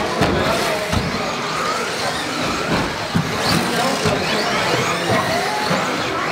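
Electric 1/10 four-wheel-drive off-road RC buggies racing on a carpet track: motor whines rising and falling with the throttle, with several sharp knocks.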